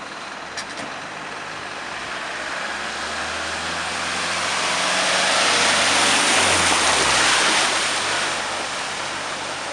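A minibus driving through deep floodwater past the camera. Its engine and the rushing spray of water thrown up by its wheels build as it approaches, are loudest about six seconds in, then fade as it passes.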